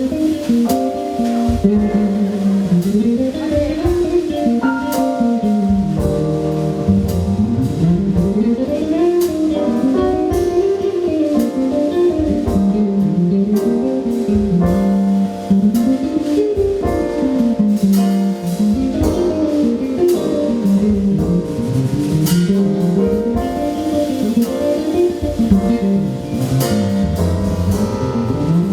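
Live jazz band playing an instrumental piece over drum kit, led by a pitched line that swoops up and down again and again.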